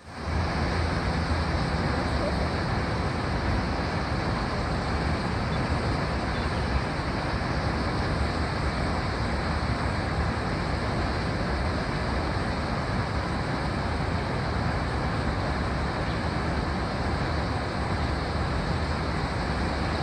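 Steady rushing of a wide waterfall pouring over a broad rock ledge into the river below, an even, unbroken noise with most of its weight in the low end.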